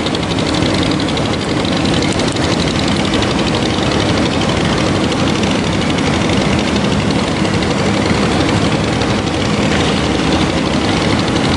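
Loud, steady rushing of a river flowing over rocks.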